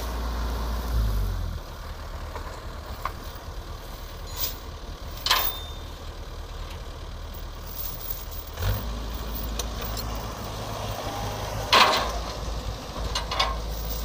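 Farm-machine diesel engine idling with a low, steady hum. The hum weakens about a second and a half in and comes back stronger near nine seconds. A few sharp knocks sound over it, the loudest about twelve seconds in.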